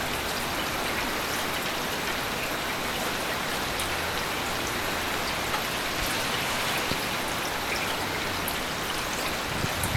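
Heavy rain falling steadily, with scattered individual drops ticking sharply on a surface.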